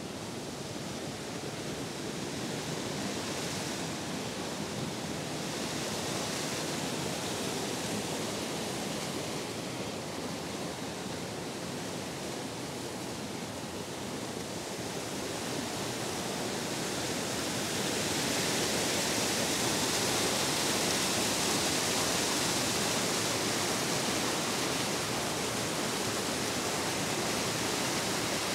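Stream water cascading down a rocky waterfall: a steady rush of falling water that grows louder and brighter about two-thirds of the way through.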